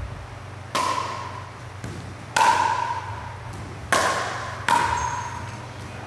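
Pickleball rally: four sharp pops of paddles striking the plastic ball, each with a brief ringing ping, the first three about a second and a half apart and the last following quickly. Fainter ticks fall between them.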